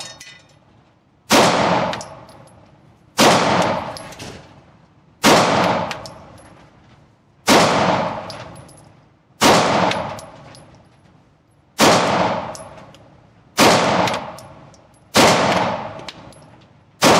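Glock 19X 9mm pistol fired nine times in slow, deliberate succession, about one shot every two seconds. Each shot echoes and dies away in an indoor range.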